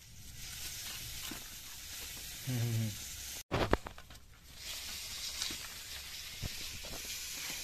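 Crisp crackling and rustling of raw cauliflower being cut with a knife and broken into florets by hand, with a sharp knock of the blade about three and a half seconds in.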